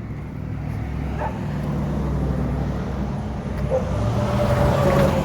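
A motor vehicle passing by, its engine and tyre noise swelling to its loudest near the end and then falling away.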